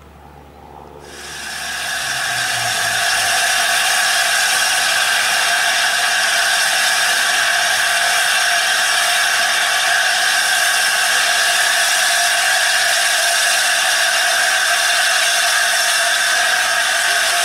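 Steam hissing steadily from LNER A4 Pacific No. 4464 Bittern as it stands with its train. The hiss comes in about a second in, builds over a couple of seconds and then holds loud and even.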